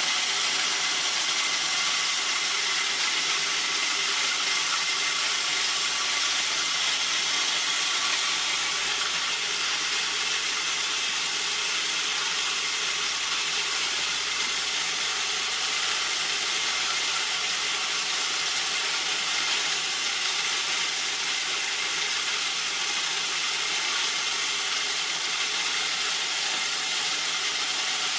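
A180 corn-cracking mill, driven by a 2.2 kW electric motor, running steadily under load while its grinding plates crack corn kernels: an even, continuous grinding noise with a faint steady whine.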